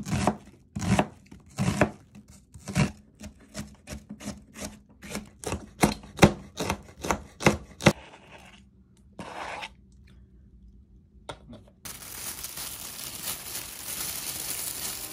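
Kitchen knife cutting red onion and green chilies on a plastic cutting board: separate sharp strokes, about two a second at first and quickening to about three a second. The chopping stops about eight seconds in, followed by a short rustle, and a steady hiss comes in near the end.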